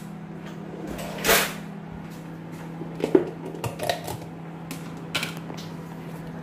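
Kitchen clatter: a few brief knocks and rustling scrapes, such as a cupboard or utensils being handled, over a steady low hum.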